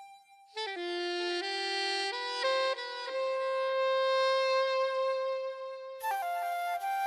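Background instrumental music: a wind-instrument-like melody of held notes stepping up and down in pitch, starting a new phrase about half a second in and again near the end.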